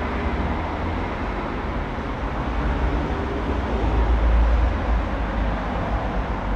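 Märklin model train running on the installation's track: a steady rumbling run that grows louder about four seconds in and eases off near the end.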